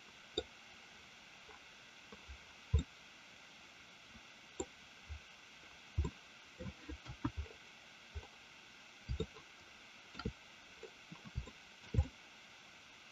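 Scattered soft clicks and knocks of a computer mouse being worked, some in quick runs, over a faint steady hiss.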